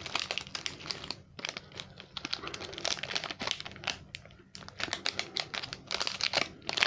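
Plastic wrapper of a small matcha chocolate wafer bar being torn open and crinkled by hand: a run of irregular crackles, with two short lulls.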